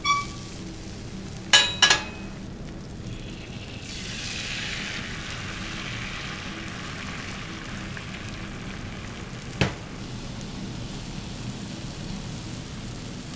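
Food frying on a hot griddle. Ringing metal clinks come at the start and twice in quick succession about a second and a half in. About four seconds in a sizzle swells and slowly eases off, and there is one sharp tap near ten seconds.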